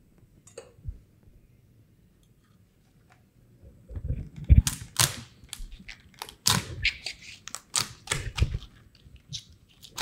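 A cleaver chopping through lobster shell onto a wooden cutting board: a run of sharp chops, each with a dull thud, starting about four seconds in.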